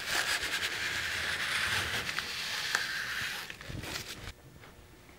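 Brown paper towel rubbing around the rim of a plastic tub, wiping off dry plaster, with a crinkly rustling scrape. It stops about three and a half seconds in.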